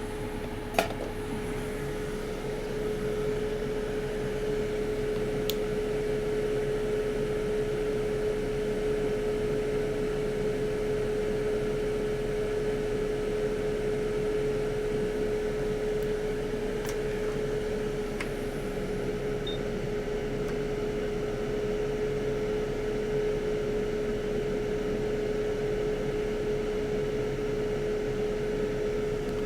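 Quick hot-air rework station running steadily with a constant hum over a rushing hiss, set to 370 degrees at airflow 60. A sharp click about a second in.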